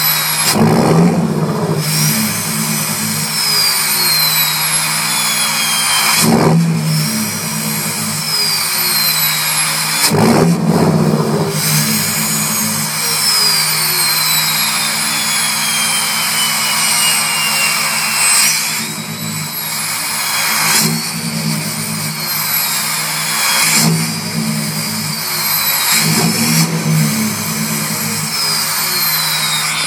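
6.7 Cummins inline-six turbo diesel, fitted with an exhaust stack, revved in short blips over and over. Each rev is followed by a loud, high turbo whistle that falls slowly in pitch as the turbo spools down.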